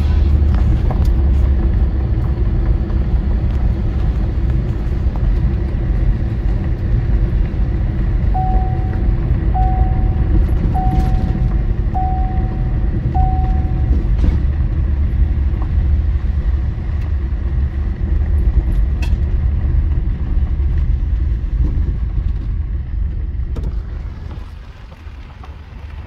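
Road noise inside a moving car's cabin: a loud, steady low rumble of tyres and engine. About eight seconds in come five short electronic beeps at one pitch, a little over a second apart. Near the end the rumble drops off.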